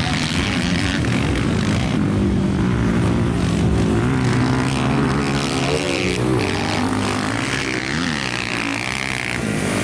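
Several motocross dirt bikes racing on a dirt track, their engines revving hard and dropping back again and again as the riders open the throttle, shift and back off over the jumps and turns.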